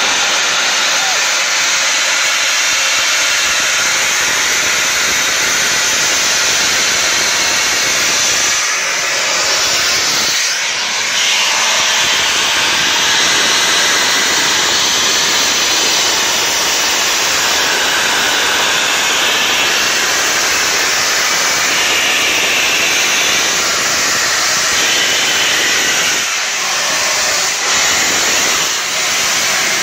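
Stationary LNER K1 steam locomotive No. 62005 venting steam: a loud, steady hiss, with a few brief dips in level.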